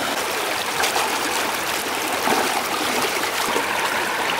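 Steady rush of a shallow stream flowing over rocks and through a woven bamboo fish trap.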